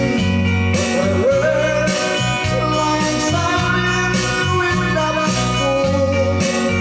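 Instrumental music with a steady beat: a bending melody, likely guitar, plays over a regular bass line, with cymbal accents about once a second.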